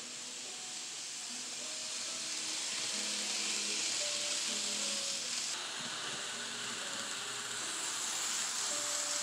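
Background music of soft, slow notes under a loud steady hiss. The hiss changes in tone about halfway through.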